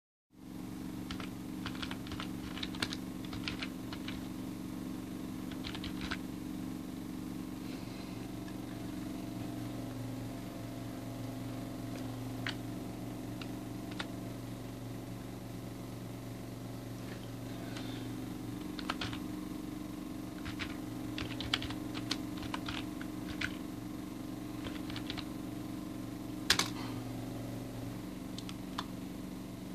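Computer keyboard keys clicking in short scattered runs as a search is typed, with one louder click near the end, over a steady low hum.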